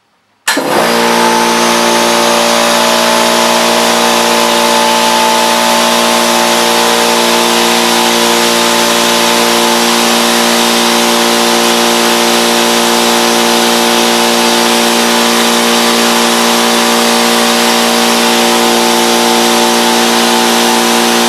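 Makita MAC5200 oil-lubricated air compressor switched on about half a second in, then running loud and steady with a constant hum. It is a break-in run, with a connector left open so the air escapes instead of building pressure in the tank.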